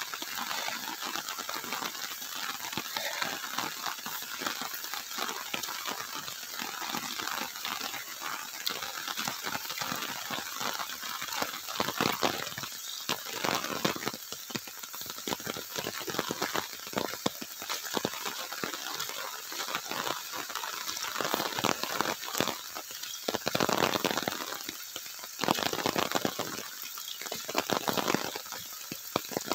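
Rain falling and pattering, a steady hiss full of fine ticks, with a few louder rustling swells near the end as the plastic rain hood brushes the microphone.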